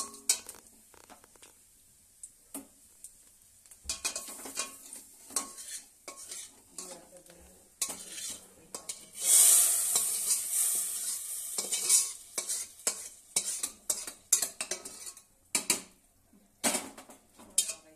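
Metal ladle scraping and clinking against a wok and pot while a hot mustard-oil tempering of spices is spooned into cooked moong dal. About nine seconds in, a loud sizzle lasting a couple of seconds as the hot oil hits the dal, then more clinks of the ladle.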